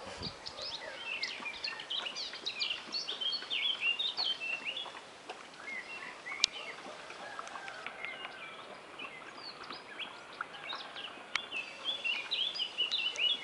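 Small birds chirping and singing in quick, repeated short calls, with one sharp click about six and a half seconds in.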